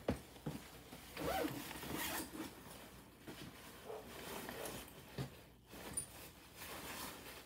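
A Burberry quilted jacket rustling and swishing as it is handled and pulled on, with a sharp knock right at the start and the loudest rustling a second or two in.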